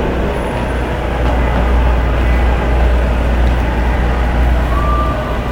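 Busy city street traffic: a loud, steady low rumble of passing vehicles, with a short high tone about five seconds in.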